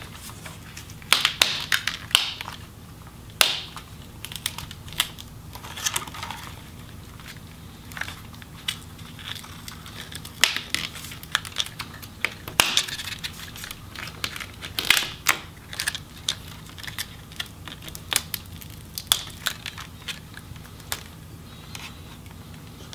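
Plastic display bezel of a Lenovo ThinkPad T470 being pried off the LCD by hand: irregular sharp snaps as the clips let go and crackling as the adhesive tape peels away.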